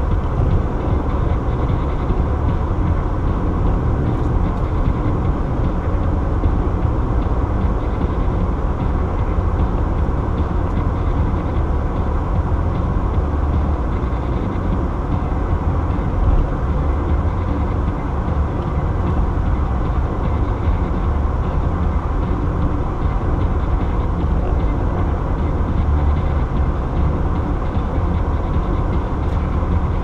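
Steady road noise inside a car cruising at highway speed: a constant low rumble of tyres and engine.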